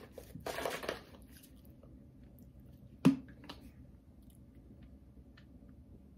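Plastic shaker bottle handled at a table: a short rustling scrape under a second in, then a single sharp click about three seconds in as the bottle is brought up to drink.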